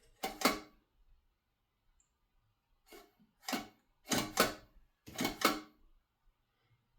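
Plastic toilet fill valve being handled while its height is adjusted: short bursts of sharp plastic clicks, often in quick pairs, one just after the start and several more from about three seconds in.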